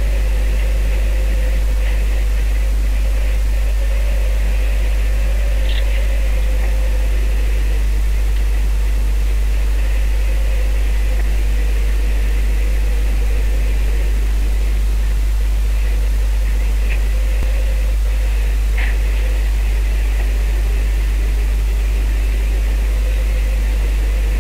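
Boat engine running steadily under wind noise on the microphone: a constant low rumble with a steady hum over it, and a few faint ticks.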